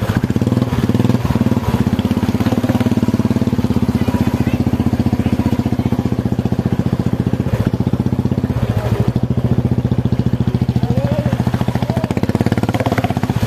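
Motorcycle engine running steadily at a low, even speed as the bike rides slowly through floodwater.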